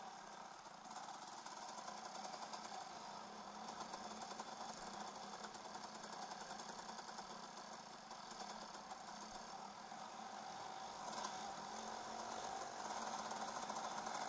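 2008 KTM 300 EXC's two-stroke engine running at low trail speed, a rapid pulsing buzz. It eases off around the middle and picks up again, louder near the end.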